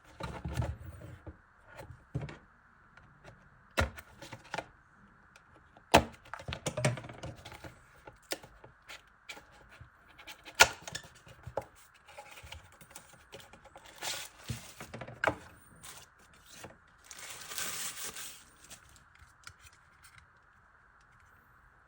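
Unboxing handling noise: scattered taps, clicks and knocks of the box and a small plastic gadget being handled, and a rustle of packaging lasting about a second and a half near the end, over a faint steady hiss.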